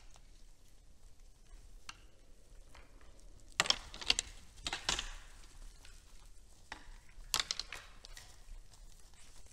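Red deer feeding and moving about at a hay pile and wooden feeder in snow: scattered sharp crunches and knocks, loudest in a cluster about halfway through and once more near the end, over a faint steady background.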